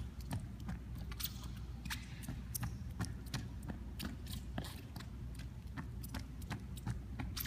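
Running shoes jogging on a hardwood gym floor: a quick run of light, uneven footfalls and sole scuffs, several a second, over a steady low hum.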